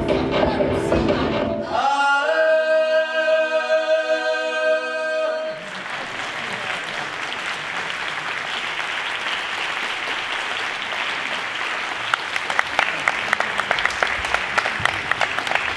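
Stage music ending on a long held chord, which cuts off about five and a half seconds in, followed by steady applause from a theatre audience, the claps growing sharper near the end.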